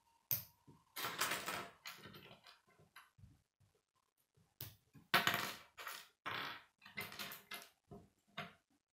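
Plastic K'nex connectors and rods clicking and rattling as they are handled and fitted together, an irregular run of short clicks and rustles, loudest a little past five seconds in.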